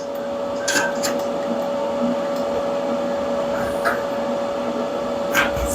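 A small electric motor or fan running steadily with a constant whine, and a few light clicks over it.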